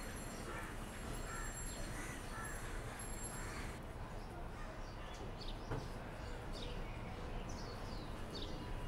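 Crows cawing over and over for the first few seconds, then quick, high bird chirps, over steady outdoor background noise. There is a single light click a little past halfway.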